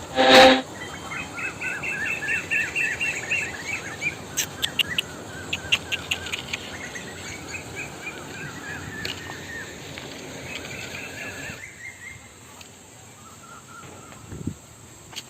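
Small birds chirping in repeated twittering phrases, with a run of sharp clicks in the middle. One short, loud cry comes about half a second in and is the loudest sound.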